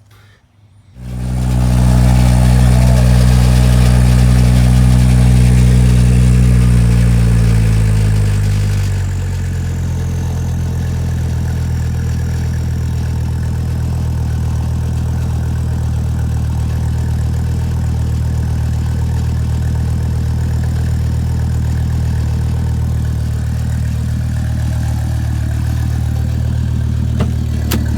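Volvo XC90 2.5-litre turbocharged inline-five engine starting about a second in, running at a raised fast idle for several seconds, then dropping in pitch and settling into a steady idle.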